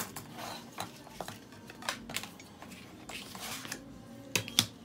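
Sheet of pattern paper rustling and sliding over a wooden worktable as it is handled, with two sharp clicks close together near the end as a brass circle template is set down on it.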